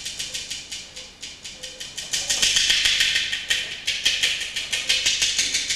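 Percussion playing a fast, even clicking rattle, about ten strikes a second, growing louder about two seconds in.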